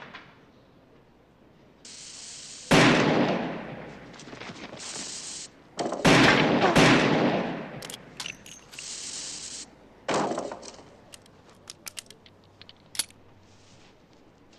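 Colt Python .357 Magnum revolver firing four loud shots: one about three seconds in, two close together around six to seven seconds, and one near ten seconds. Short stretches of steady hiss come between the shots, and a few light clicks follow near the end.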